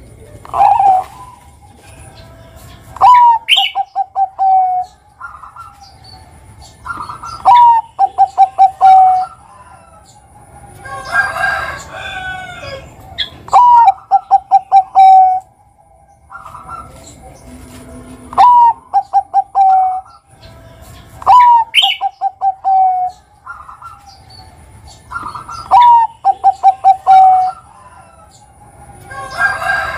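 Bangkok-type zebra dove (perkutut) singing its cooing song, six times over: each phrase opens with a rising note and runs into a quick string of five or six short, even coos. A second, noisier bird call comes in twice between the phrases.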